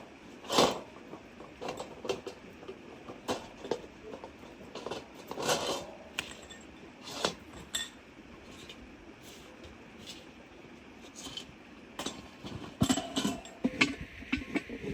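Camp cookware and utensils being handled: irregular metal clinks and knocks, with a quicker run of them near the end.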